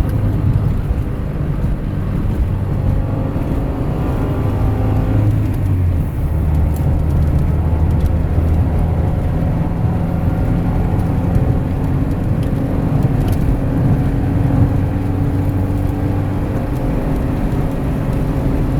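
Honda Civic with a swapped-in Del Sol S20 manual transmission, running on the road: the engine and gearbox run steadily, with a bearing noise from the transmission's bad bearings. The pitch drops about six seconds in.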